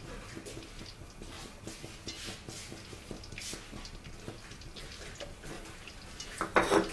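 Raw peanuts frying in a little oil in a wok over low heat, with light scattered crackling and ticking. A short, much louder clatter comes near the end.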